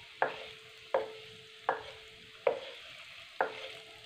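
A wooden spoon knocks against a karahi (wok) as masala-coated boiled eggs are stirred in hot ghee. There are about five knocks under a second apart, each leaving a short ring, over a faint sizzle.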